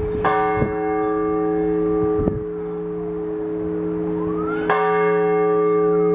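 Orthodox church bells being rung: two clanging strikes about four and a half seconds apart, each leaving a bright ringing, over the long hum of a larger bell that keeps sounding.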